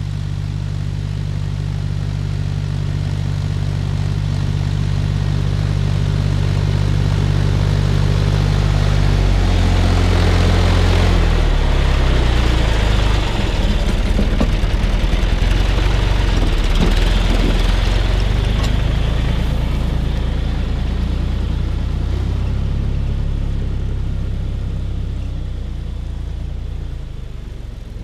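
John Deere tractor's diesel engine working under load with a stubble plough, growing louder as it approaches. Its engine note drops as it passes close by about halfway through, joined by the rush of soil and stubble thrown up by the plough. It fades as the tractor moves away.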